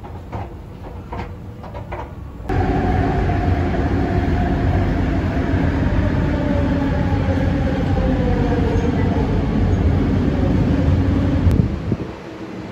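Inside a moving LRT train car: a loud, steady running rumble with a whine that slowly falls in pitch. It starts abruptly about two and a half seconds in, after quieter station sound with a few light clicks, and cuts off just before the end to quieter station noise.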